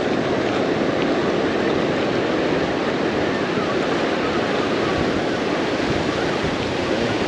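Steady rush of breaking surf washing up a sandy beach.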